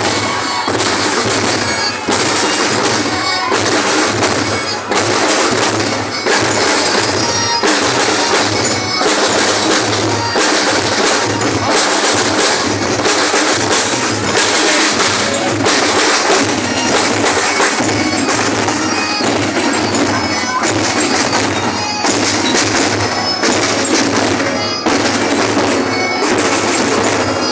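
Percussion music from a parade: drums playing a steady beat, with a strike about once a second.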